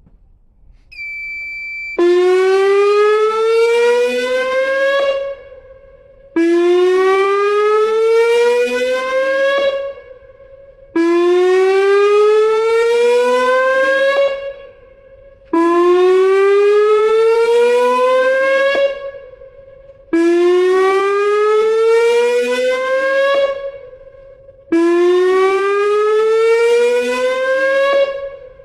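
Tsunami warning siren on test, sounding a repeated rising wail: six loud sweeps, each climbing in pitch for about three seconds and then cutting off, with a short pause between them. A brief high alert tone sounds just before the first wail.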